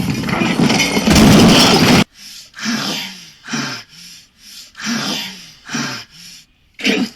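A loud, rough noise for about two seconds, then a string of short, breathy gasps from a person, about one a second, each falling in pitch.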